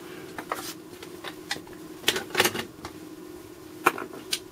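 Scattered clicks, taps and rustles of test leads being unhooked and a multimeter being lifted off a cardboard-covered bench, loudest about two seconds in and again near the end, over a steady low hum.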